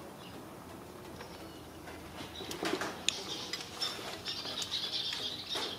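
Hand ratchet clicking as a bolt is worked loose, starting about two seconds in, with scattered metal clinks of tool on bolt.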